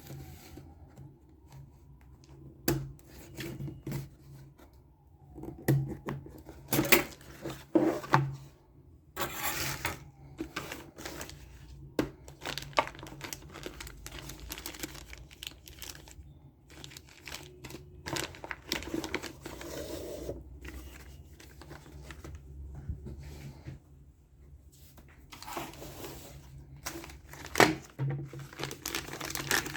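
Packaging being handled and opened by hand: irregular plastic crinkling and tearing, with scattered sharp clicks and knocks from small parts.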